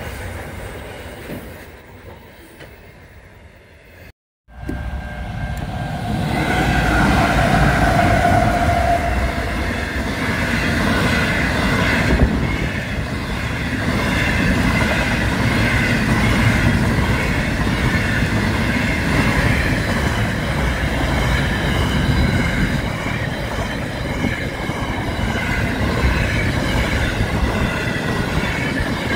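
A passing train fades and cuts off about four seconds in; then a container freight train rushes through a level crossing, a loud steady rumble of wagons and wheels with high steady tones ringing above it.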